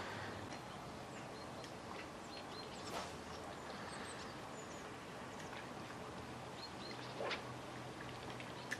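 Quiet outdoor ambience with scattered short, high bird chirps and calls, and one brief louder sound about seven seconds in.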